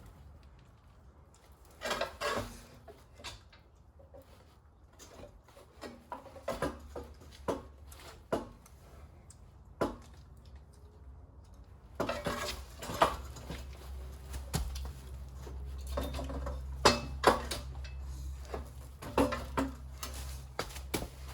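Irregular metal clanks and knocks as a small engine is shifted and bumped against a mini bike frame during a test fit. The knocks come thicker in the second half, over a low steady hum.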